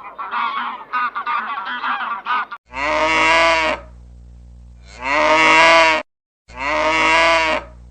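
A flock of geese honking in quick, overlapping calls, then a cow mooing three times in long, drawn-out calls of about a second each.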